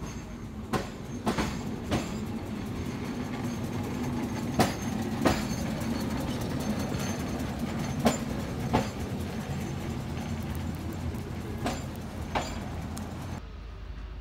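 Vintage electric tram running past on street rails: a steady low hum with sharp clacks, mostly in pairs, from its wheels on the track. It drops away suddenly near the end.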